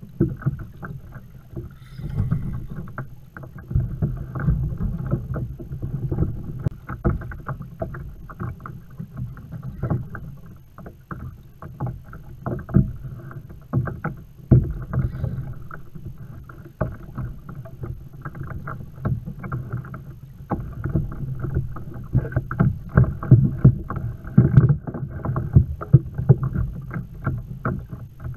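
Muffled, irregular knocks and water slaps against a plastic sit-on-top kayak's hull, with the bumps of rod and reel handling, as the angler reels in a hooked kingfish.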